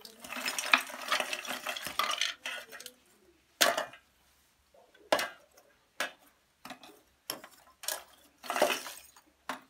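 Lumps of charcoal clattering as they are tipped into a charcoal stove, then single pieces clinking as they are knocked into place by hand, about once a second.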